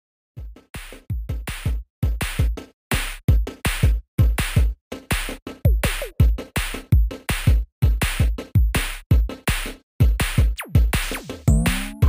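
Electronic background music: a steady drum-machine beat of kick drum and high ticking hats, with a rising synth sweep near the end.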